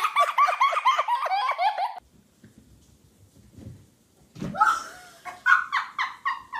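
A person laughing hard in quick, high-pitched bursts, which stops abruptly about two seconds in. After a near-quiet stretch, a girl laughs again in bursts from about four and a half seconds.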